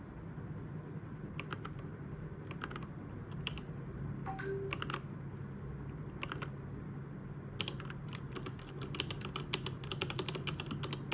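Keys being pressed on a mechanical keyboard with linear red switches. A few scattered keystrokes come first, then fast typing starts about eight seconds in.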